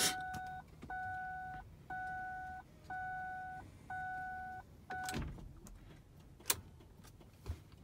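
2006 Lincoln Navigator's dashboard warning chime beeping steadily about once a second, six times, the last cut short by a click, followed by two more sharp clicks. The engine does not crank because the battery is too flat to turn the 5.4L V8 over.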